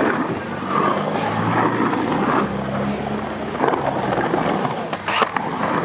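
Skateboard wheels rumbling as they roll and carve around a concrete bowl, with a sharp click about five seconds in.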